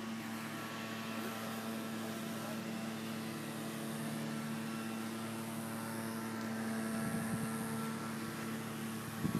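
A steady mechanical drone holding one pitch, from an engine or motor, swelling slightly about seven seconds in, with a brief knock near the end.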